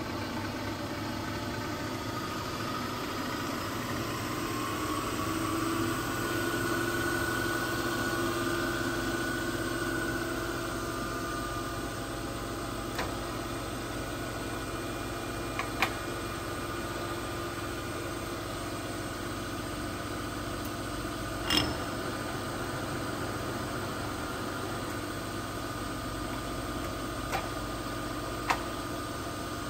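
Phoebus PGM-GVS300A milling machine's variable-speed vertical head running, a steady mechanical hum with several whining tones whose pitch and level shift over the first dozen seconds as its speed handwheel is turned. A few sharp clicks, the loudest a little past the middle.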